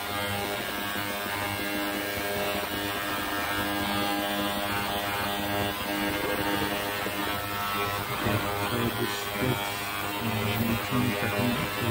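Benchtop ultrasonic cleaner bath running, a steady electric buzz with a hiss over it, as it sonicates a flask of carbon nanotube and epoxy mixture.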